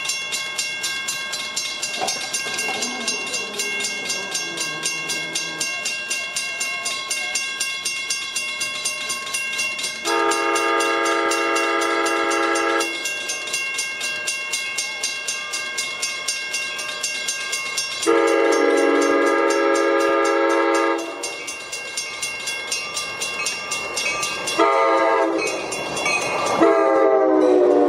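An ACE commuter train sounds its horn in the standard grade-crossing pattern: long, long, short, long. The last blast drops in pitch as the train comes alongside. Under it a bell rings steadily, about twice a second.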